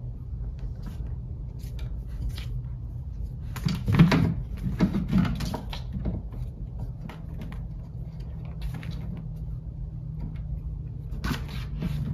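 A cat batting and pouncing on a small catnip toy mouse on a wooden floor: light taps and scuffs, with a burst of louder knocks and scrabbling about four seconds in and another near the end.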